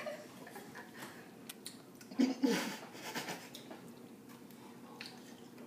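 Quiet mouth sounds and small clicks of metal spoons as children suck dry drink-mix powder off them, with a short vocal sound about two seconds in.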